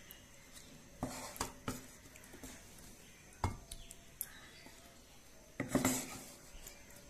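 Serving spoon knocking and clinking against dishes as chicken pieces are spooned onto a plate. There are a few knocks about a second in, single taps in the middle, and the loudest clatter near the end.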